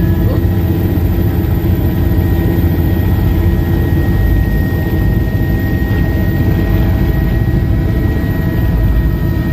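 Helicopter engine and rotor heard from inside the cabin in flight: a loud, steady drone with a steady high whine over it.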